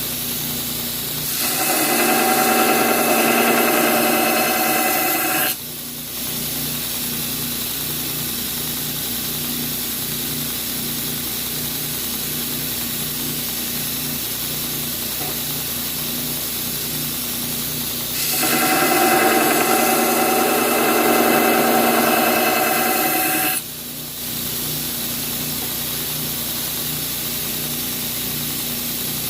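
A power grinder runs steadily while a steel knife blade forged from a pipe wrench is ground. Twice, for about four to five seconds each, the steel is pressed to the grinder and a louder, higher grinding whine sounds, then cuts off sharply.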